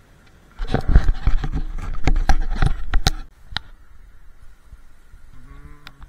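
Loud handling noise with knocks and scraping as the camera is taken off and carried up through dry, brushy undergrowth, lasting about two and a half seconds from half a second in. Near the end comes a short voiced sound.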